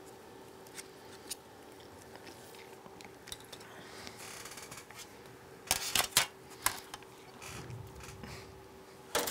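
Hands handling a MacBook Air logic board and its aluminium case on a workbench: a few light clicks and taps as the board is lifted out, then a cluster of sharp clicks and knocks about six seconds in and again near the end, over a faint steady electrical hum.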